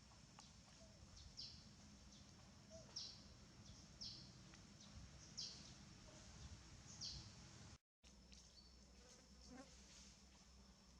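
Faint outdoor wildlife ambience: short high chirps that fall in pitch, repeating every second or so, over a thin steady high insect drone. The sound cuts out briefly near eight seconds.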